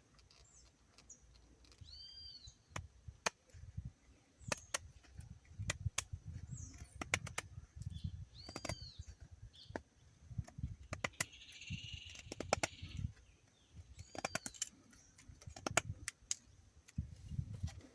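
Scattered sharp clicks and dull low knocks, with a short arching bird call three times, about six seconds apart.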